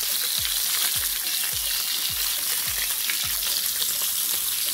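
Wild boar tomahawk steaks searing in hot sunflower oil in a ridged grill pan, a steady sizzling hiss.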